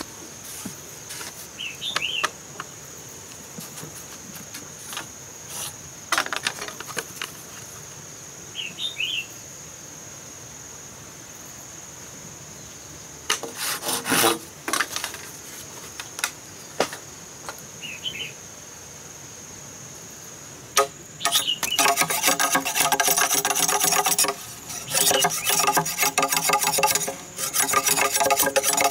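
Rapid back-and-forth sawing strokes of a blade cutting through a green bamboo pole, starting about two-thirds of the way in and then the loudest sound. Before that, a few knocks of bamboo poles being moved, over a steady high insect buzz.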